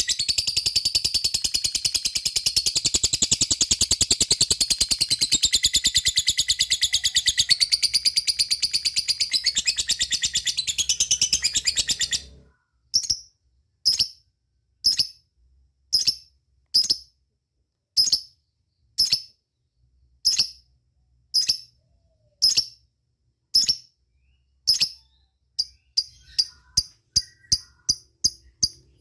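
Lovebird giving a long, fast, unbroken chattering trill (the 'ngekek' song) that stops suddenly about twelve seconds in. It then gives single short, sharp 'cik' calls (the 'ngetik' call) about one a second, quickening to two or three a second near the end.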